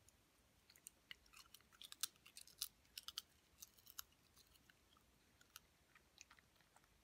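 A whippet chewing a piece of popcorn: quick, crisp crunching clicks, densest in the first four seconds, then a few scattered ones as she finishes.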